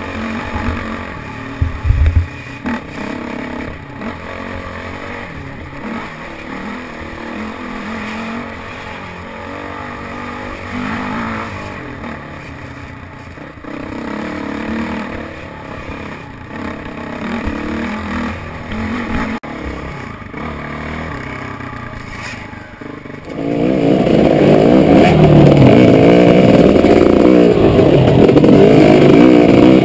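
Off-road motorcycle engines running along a dirt trail, the note rising and falling with the throttle. About 23 seconds in it becomes much louder and close: one dirt bike's engine heard right from its handlebars, revving up and down hard.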